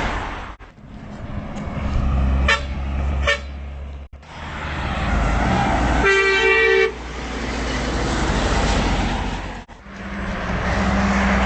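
Heavy trucks passing with engine rumble and road noise, and one truck horn blast lasting just under a second about six seconds in.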